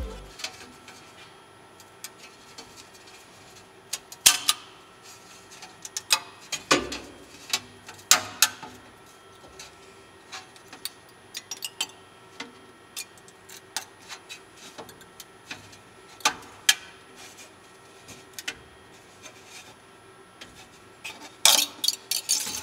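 Flexible PEI-coated spring-steel print sheet being handled and flexed: scattered sharp clicks, taps and creaks as it bends and meets the magnetic bed, the ABS-PC prints on it staying stuck. A faint steady hum runs underneath, with a cluster of louder clicks near the end.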